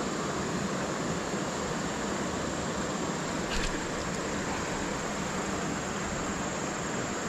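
Steady rush of running stream water, with a single faint click about halfway through.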